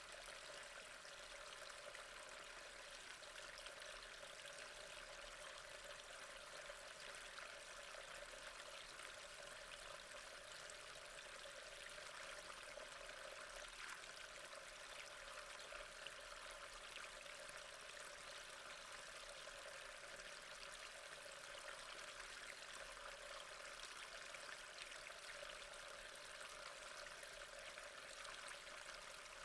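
Faint, steady trickle of gently flowing water, with fine splashing running through it.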